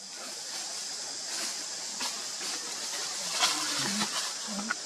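Steady high outdoor hiss, with a few light rustling clicks and a faint wavering voice in the last second and a half.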